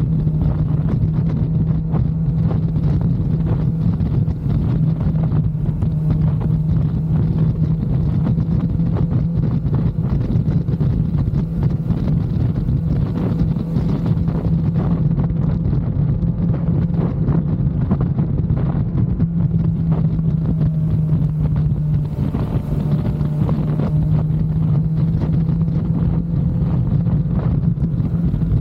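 Kawasaki Z900's inline-four engine running at a steady, unchanging pitch under way, with wind noise on the microphone.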